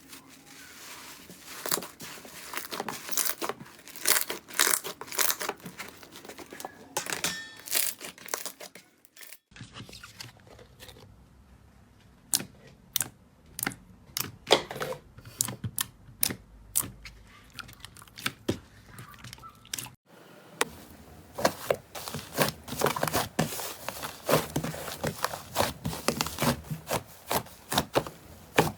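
Slime being squeezed and stretched by hand close to the microphone, giving dense crackling and popping clicks. The sound breaks off and restarts twice, as three separate takes.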